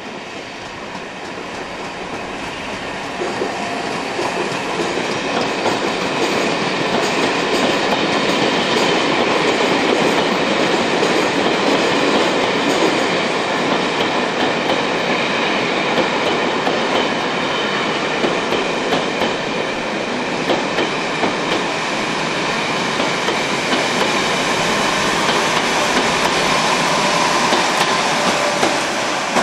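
Class 86 electric locomotive 86252 and its passenger coaches passing at speed. The steady rumble of wheels on rails grows louder over the first few seconds, then holds, with frequent sharp clicks as the wheels cross rail joints.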